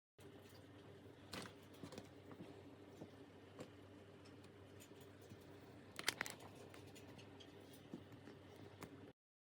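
Faint room tone with scattered light clicks and taps of small objects being handled, and a sharper quick cluster of clicks about six seconds in.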